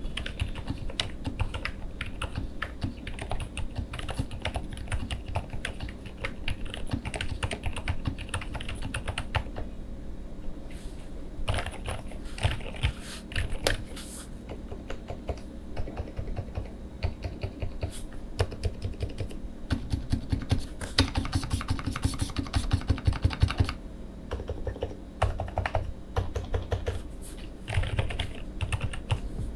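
Typing on a QwertyKeys QK101 full-size mechanical keyboard with lubed Lucy R5T switches, tuned stabilizers, GMK Carbon R2 keycaps and foam throughout: runs of rapid keystroke clacks with a couple of short lulls.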